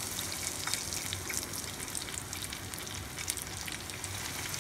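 Breadcrumb-coated balls being lowered into hot oil in a small pan, the oil sizzling steadily with many sharp crackles.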